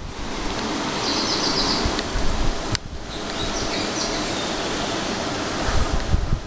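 Outdoor wind rushing over the microphone, a steady noise with low gusty rumbles. Brief high chirps come twice, about a second in and again around four seconds in.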